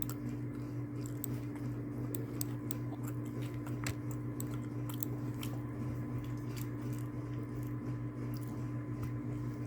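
A person chewing food close to the microphone, with small irregular clicks and crunches, over a steady low electrical hum.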